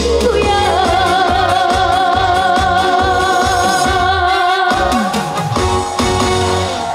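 Live Korean trot song: a woman sings one long held note with vibrato over the band backing, and the music winds down toward the end.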